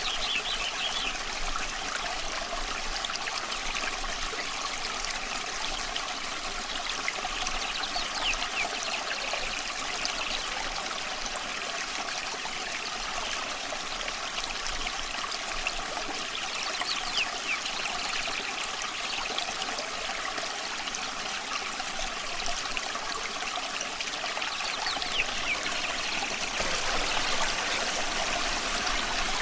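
A stream of running water trickling and splashing steadily, with a few faint, brief bird calls now and then.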